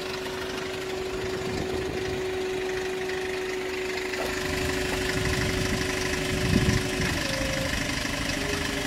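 Kia Bongo III wrecker's diesel engine idling steadily, with a steady whine running over it that breaks off about seven seconds in and returns at a higher pitch.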